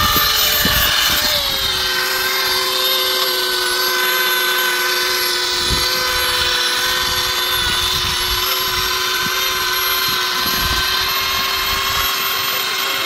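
Hand-held plastic extrusion welder running steadily while it lays a molten bead of welding rod onto the geomembrane liner: a steady motor whine over hot-air hiss, its pitch dropping slightly about a second in.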